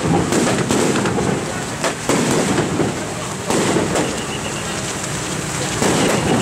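Heavy rain pattering on an umbrella held overhead, coming in loud crackling surges that start suddenly and ease off, with crowd voices under it.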